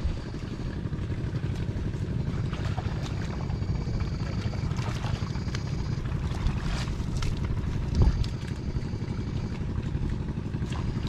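Small boat engine running steadily with a fast, even low pulsing. A faint high whine comes and goes over it, and there is one louder thump about eight seconds in.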